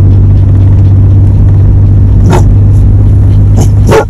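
Car driving, heard from inside the cabin: a loud, steady low rumble of road noise, with a few short knocks about two seconds in and again near the end.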